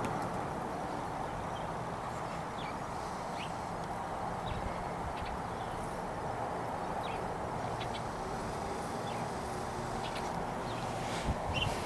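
Steady noise of a garbage truck running a street or so away, with faint short bird chirps scattered through it and a couple of soft knocks near the end.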